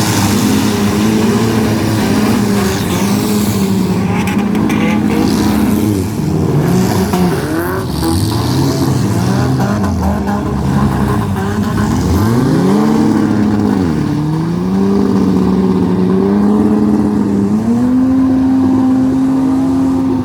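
Engines of several demolition derby cars revving up and down, one holding a steady note while others rise and fall. There are a few sharp knocks about four to five seconds in.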